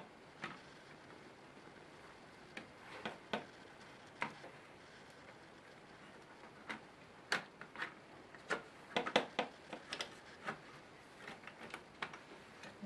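Irregular small clicks and taps of hands handling a laptop's motherboard, plastic chassis and cable connectors, coming in a quick cluster about nine to ten seconds in.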